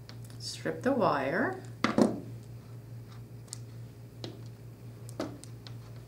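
Hand wire strippers cutting and pulling the insulation off a small automotive wire, with a sharp snap about two seconds in, then a few light clicks as the tool and wire are handled.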